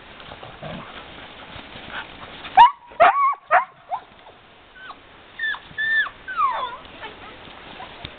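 Sled dogs vocalizing in play: a loud burst of high, sliding yelps about two and a half seconds in, then a few shorter high calls that drop in pitch a couple of seconds later.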